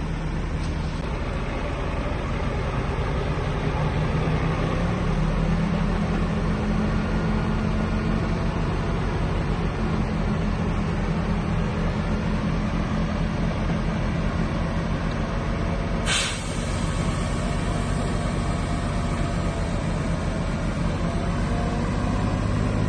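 Heavy diesel earthmoving machinery running steadily, its engine pitch stepping up about five seconds in as it takes on more throttle. There is a brief sharp noise about sixteen seconds in.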